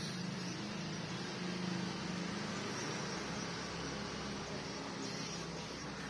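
Steady low hum over a constant hiss of background noise.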